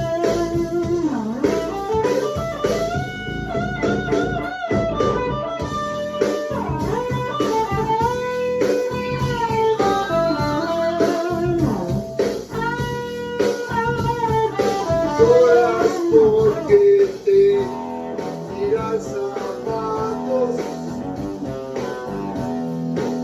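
Guitar playing an improvised blues-style lead line, with held notes that bend and waver in pitch, breaking into quicker repeated notes near the end.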